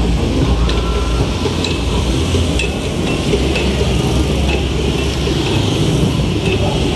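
Loud, distorted street din of a night procession: a deep, uneven bass rumble from sound systems and motorcycles, with crackle and scattered short clicks over it.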